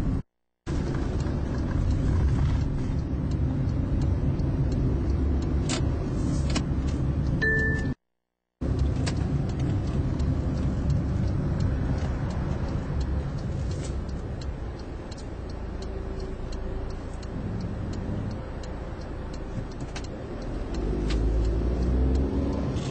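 Car running along a road, heard inside the cabin: a steady low rumble of engine and tyres. It cuts out briefly twice, near the start and about 8 seconds in, with a short beep just before the second gap. Near the end the engine note rises as the car speeds up.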